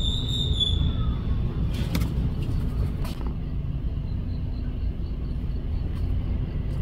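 Steady low outdoor rumble, with a brief high-pitched call in the first second and a couple of light clicks about two and three seconds in.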